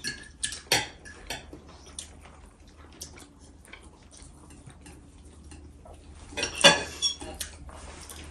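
Knives and forks clinking and scraping on ceramic dinner plates as steak is cut, in scattered sharp clinks, the loudest cluster about two-thirds of the way through.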